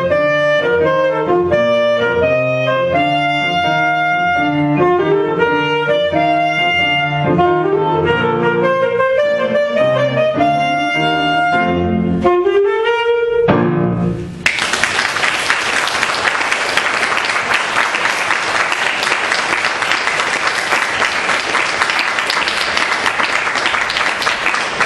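Alto saxophone with piano accompaniment playing a lively piece that closes with a rising saxophone run onto a held note. A little over halfway through, the music stops and audience applause starts and carries on.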